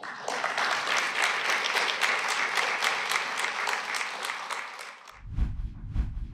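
Audience applause, dying down toward the five-second mark. It gives way abruptly to music with a steady beat.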